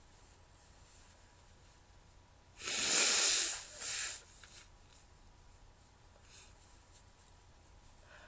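A person pushing breath hard through the nose: an airy hiss lasting about a second, a little before the middle, followed by a shorter one. No voiced sneeze.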